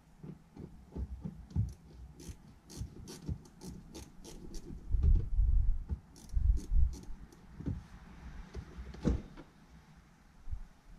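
Small hand tool worked on fasteners inside a car's rear wheel arch: a run of small clicks and scrapes, with dull thuds about five to seven seconds in and a sharper knock near nine seconds.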